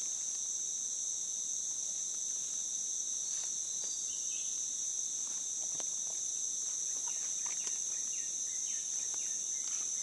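Steady high-pitched drone of forest insects in chorus, with a few faint crackles of footsteps and brushing through undergrowth and leaf litter.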